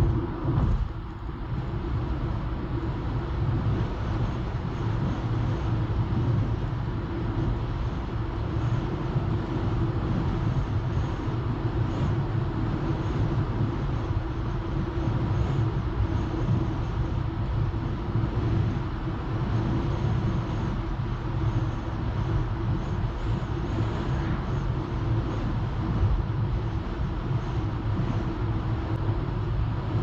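A car driving steadily on an asphalt highway: a continuous low rumble of tyres on the road and the car running, with no sudden events.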